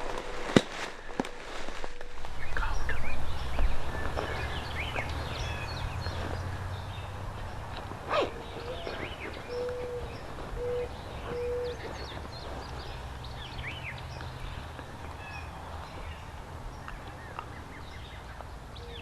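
Woodland songbirds chirping and singing, with a low call of three or four short, even, cooing notes about halfway through. Wind rumbles on the microphone, and a few sharp clicks come in the first two seconds.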